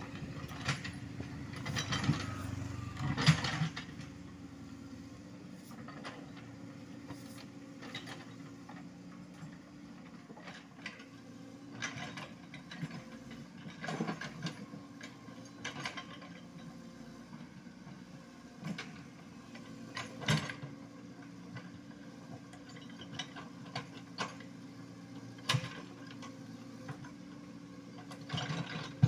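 Komatsu PC75UU mini excavator's diesel engine running steadily, with irregular knocks and scrapes as its steel bucket works soil and stones at the road edge, the loudest in the first few seconds.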